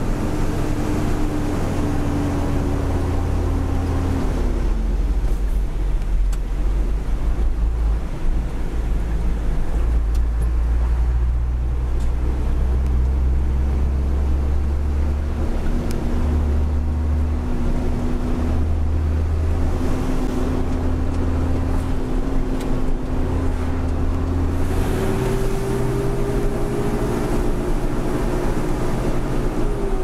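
Truck engine and road noise heard from inside the cab while driving: a steady low drone. The engine's pitch drops about four seconds in, climbs slowly through the middle, steps up near the end and falls again at the very end.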